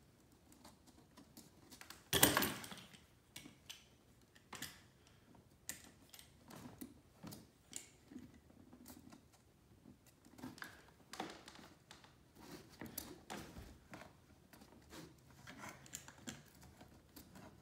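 Faint, irregular clicks and scrapes of rubber spline being pressed into the channel of an aluminium window-screen frame over the screen mesh, with one louder, brief rustle about two seconds in.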